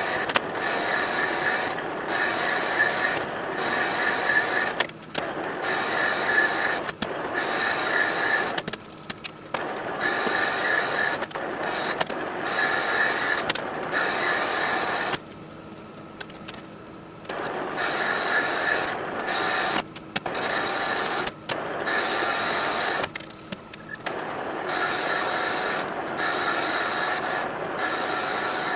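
A gear-driven manual machine tool running, with a steady mechanical whine. The sound drops out briefly many times, once for about two seconds around the middle.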